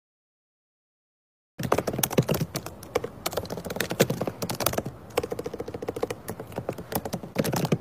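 Fast typing on a laptop keyboard: a dense run of key clicks that starts about a second and a half in.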